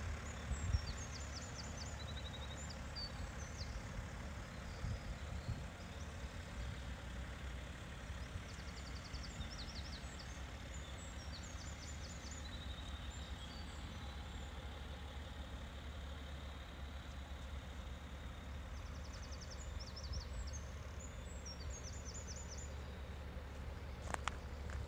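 A songbird sings the same short phrase of quick notes three times, about every ten seconds, over a steady low rumble. Near the end there is one short knock.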